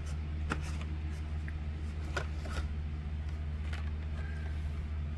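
A few light clicks and rustles of a carded plastic blister pack holding a die-cast toy car being handled, scattered through the seconds, over a steady low hum.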